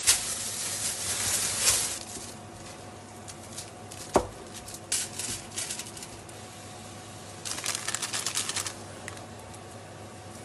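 Hands handling food and kitchen wrapping: rustling at first, a single sharp click about four seconds in, then two runs of quick crackling clicks like paper or foil being crinkled.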